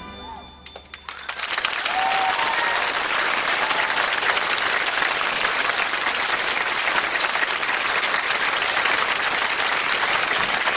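Studio audience applause, starting about a second in as the last of the music dies away and then holding steady and dense.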